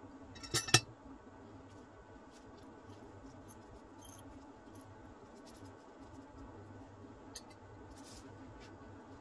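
A metal ratchet and wrench set down on a metal worktop: two sharp ringing clanks about half a second in. After that come faint clicks and scrapes of small bolts, nuts and washers being handled.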